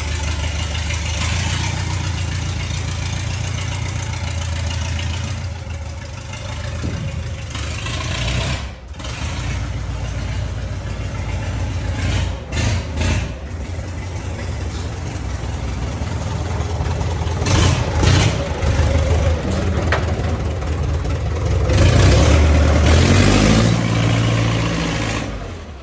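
Belarus tractor's diesel engine running, with a few brief sneeze-like stumbles and breaks in its note, then revved up near the end.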